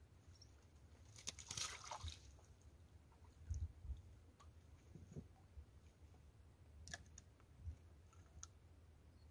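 Faint wet squishing and small clicks from a tilapia being unhooked by hand, with a short rustle about a second in.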